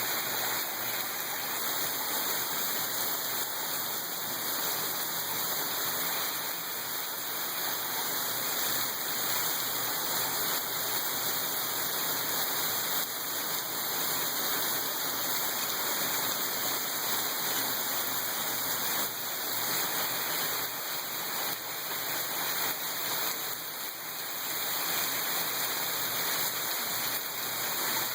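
Heavy rain pouring steadily, a dense, even hiss of water.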